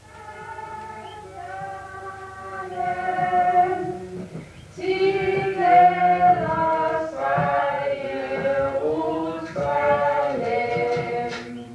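Choir singing a slow hymn-like melody in held notes, softer at first and louder from about five seconds in.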